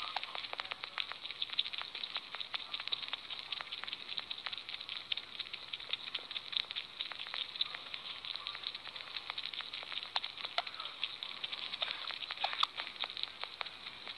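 Sugar gliders in a fleece pouch making a steady, dense crackle of tiny clicks, a few sharper clicks standing out near the end.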